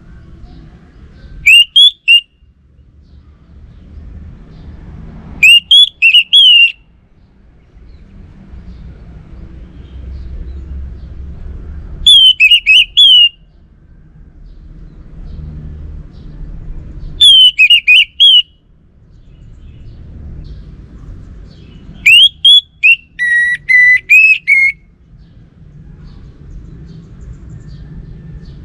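Orange-headed thrush singing: five short, loud, whistled song phrases a few seconds apart, the last one longer and ending in lower notes. A faint low rumble lies between the phrases.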